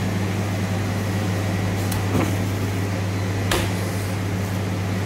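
Steady low machine hum, with a few short clicks and taps as a knife trims fat from a raw beef tenderloin on a plastic cutting board.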